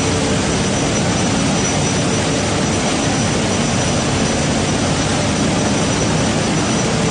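Diaper-making production line running: a loud, steady machinery noise with a thin high whine held throughout.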